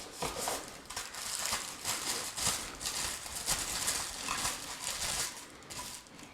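Plastic packaging and accessory parts being handled: a steady run of crinkling rustles and light clicks and knocks, tailing off near the end.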